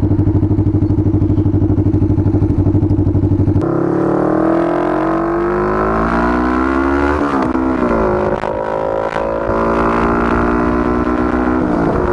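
Motorcycle engine heard from the rider's seat with wind noise on the microphone: first a steady, pulsing low-speed run, then, after a cut, the engine note rising as the bike accelerates, with a quick drop and climb in pitch about seven seconds in, as at a gear change.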